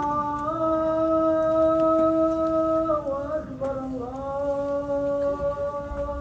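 A single voice chanting in long held notes, in the style of mosque chanting: a note held steady for a couple of seconds that breaks off about three seconds in, followed by a slightly lower held note.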